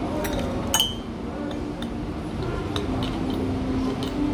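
A spoon clinking against a cup, with one sharp clink that rings briefly a little under a second in, then quieter stirring over steady background room noise.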